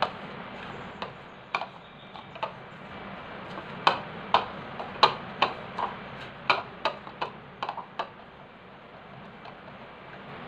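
Irregular sharp clicks and taps against a ceramic bowl as dough is pressed and rolled into a ball by hand, a few at first, then a quick run of about a dozen in the middle before they stop.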